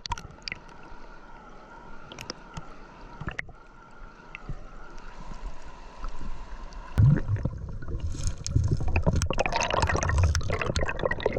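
River water gurgling around the camera, with scattered small clicks; about seven seconds in it turns much louder and busier, full of splashing and clicking.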